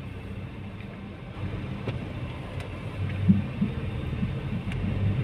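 Car cabin noise while driving: a steady low engine and road rumble inside the car, with a few faint clicks.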